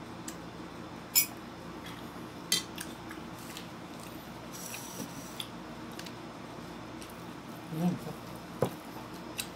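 Metal spoon clinking against a ceramic soup bowl: a handful of short, sharp clinks spread out, the loudest about a second in with a brief ring. Just before the end, a short handling noise and a knock as the plastic-wrapped bowl of bread is moved.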